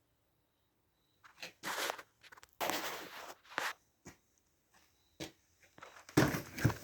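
Intermittent rustling, scraping and knocks of hands working inside an opened dryer cabinet while clearing out lint. There are several short noisy spells with sharp clicks between them, and the loudest spell comes near the end.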